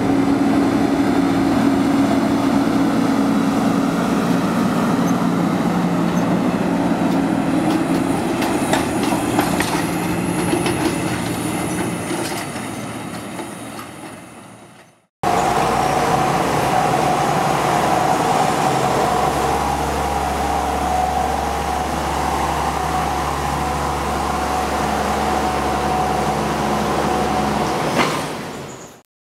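John Deere combine harvester running while harvesting wheat: a steady machine drone that fades out about halfway. After a cut it runs steadily again with a high whine over a low hum, fading out near the end.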